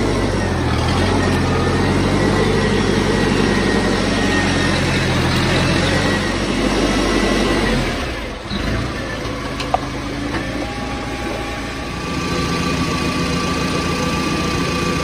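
Farmall Cub's small four-cylinder engine idling steadily with the fuel shut off at the sediment bowl, running the carburetor dry before winter storage. The sound dips and changes briefly about eight seconds in.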